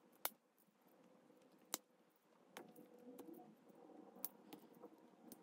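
Faint handling of a Swiss Army knife: a handful of sharp clicks a second or so apart as its blades and tools are opened and closed, over near-silent room tone.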